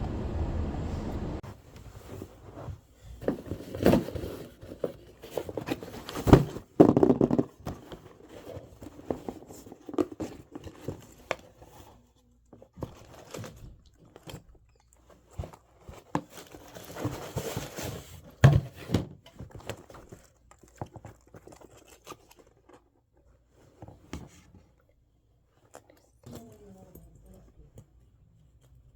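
Packaging being handled and opened: irregular crinkling, rustling and tearing, with scattered sharp clicks and knocks that are loudest in the first two-thirds.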